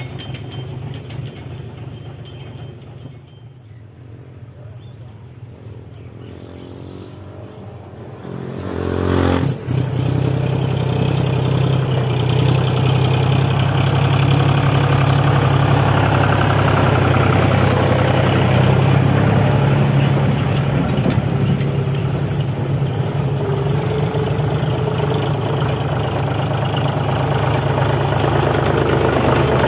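John Deere 5045D tractor's three-cylinder diesel engine running. It is faint at first, grows loud about nine seconds in, and then holds steady.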